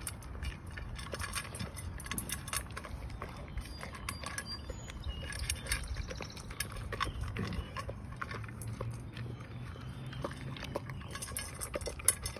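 A dog crunching dry kibble out of a stainless steel bowl, with frequent sharp clicks of food and teeth against the metal. One louder clink near the end.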